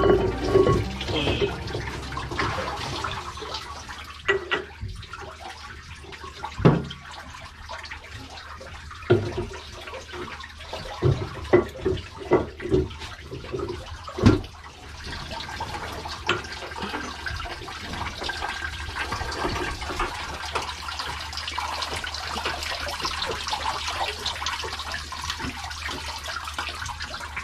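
A string of sharp knocks and clanks as a hand works on the housing, then, from about halfway, a steady hiss of water spraying from a leaking joint on a pump housing, over a low machinery hum.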